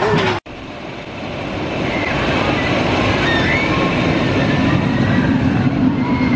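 Rocky Mountain Construction roller coaster train running on its steel track: a steady rumble that swells after a momentary dropout about half a second in, with faint wavering high calls over it.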